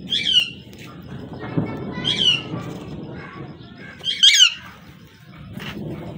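Alexandrine parakeet giving three loud, harsh screeches, each a short call falling in pitch, about two seconds apart; the last is the loudest.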